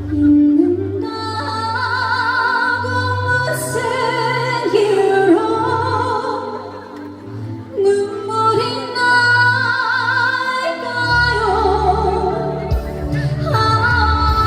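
A woman sings a slow ballad with strong vibrato over backing music with a steady bass line, held notes wavering throughout.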